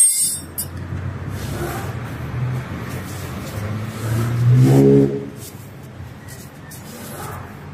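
A motor vehicle engine running low and steady, revving up briefly about four seconds in and settling back. A sharp click right at the start.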